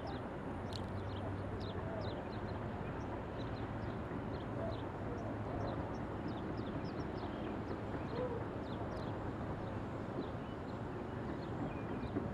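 Outdoor ambience: a steady low rush with many short, high, falling bird chirps scattered throughout.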